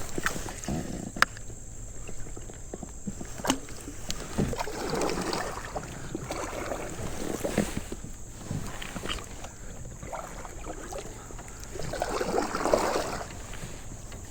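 Kayak paddling: water splashing and swishing with paddle strokes every few seconds, with a few sharp knocks.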